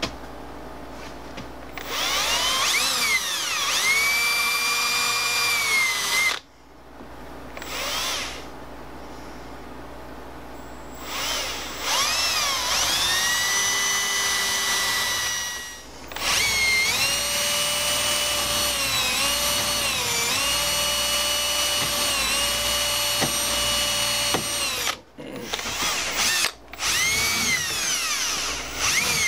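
Cordless drill boring into a handle block clamped in a bench vise. It runs in several long bursts, each spinning up with a rising whine, holding steady and winding down, with a few short bursts near the end.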